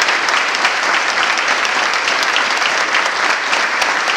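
Audience applauding steadily: many people's hand claps blending into one dense, even patter.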